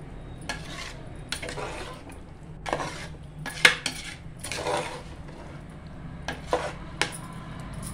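A ladle scraping and knocking against the sides of a pressure cooker while stirring thick masala-coated chicken: irregular scrapes and clinks, the sharpest clink about halfway through, over a low steady hum.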